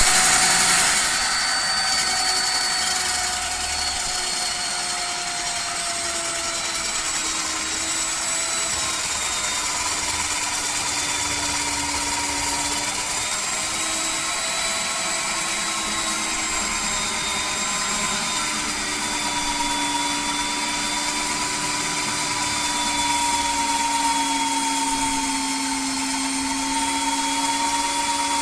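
Concrete core drilling machine running under load, a steady motor whine whose pitch drifts slightly as the bit cuts into concrete. It is loudest in the first second or so.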